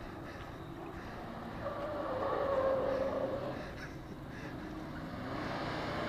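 Car engines running hard as two cars chase each other, with a wavering high-pitched squeal that swells about two seconds in and fades a second or so later.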